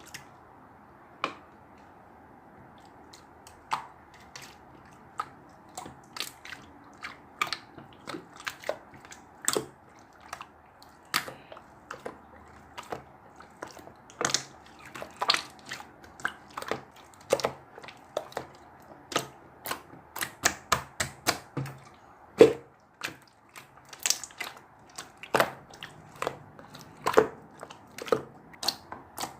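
Mixed slime being squeezed and pressed by hand, giving irregular sharp clicking pops, sparse at first and coming thick and fast from about six seconds in.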